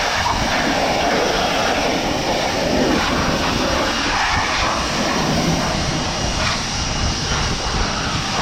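Pressure washer running steadily, its water jet spraying against the car's body.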